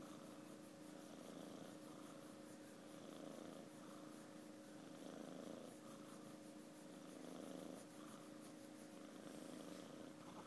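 A ginger kitten purring faintly as it sleeps, the purr swelling and easing about every two seconds with its breathing.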